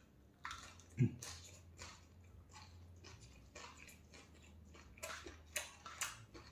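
A person chewing a mouthful of rice and singju, a shredded-vegetable salad, eaten by hand, with a run of short wet mouth clicks and smacks. A single low thud about a second in.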